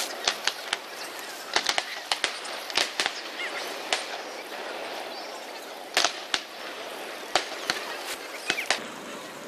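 Aerial fireworks shells bursting at a distance: irregular sharp bangs, some in quick clusters of two or three, over steady background noise.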